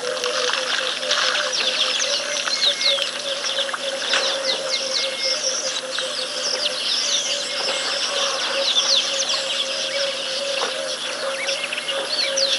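Wild birds chirping, many short, quick falling chirps overlapping, over a steady low drone and an even background hiss.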